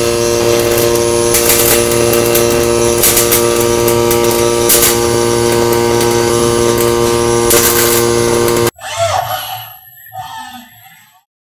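Robotic MIG welding arc fed by a Miller Auto-Continuum power supply in its RMD pulse mode, welding a nut onto a steel part: a steady buzzing hum with a few brief louder surges. The arc cuts off abruptly about nine seconds in as the weld finishes, and a quieter, uneven noise follows for about two seconds.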